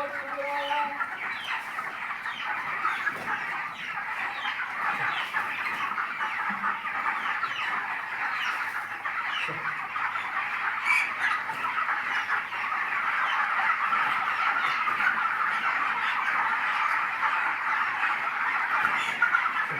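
A large flock of 25-day-old broiler chickens calling: many overlapping peeps and clucks blend into a continuous chatter, getting a little louder about two-thirds of the way through.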